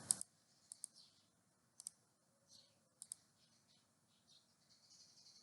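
Computer mouse clicking: about five quick double clicks, a second or so apart, over near silence.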